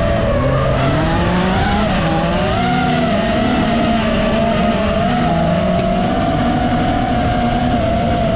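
Racing cars' engines revving and climbing through the gears, under the high, wavering whine of an FPV drone's motors and propellers.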